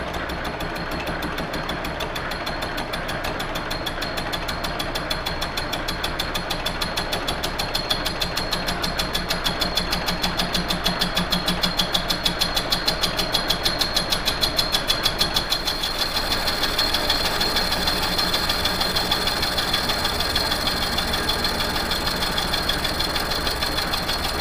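Victor lathe running, turning down an electric motor shaft built up with Eutalloy bronze-nickel spray weld, with the tool cutting the weld deposit. A steady machine sound with a fast, even pulse and a high whine.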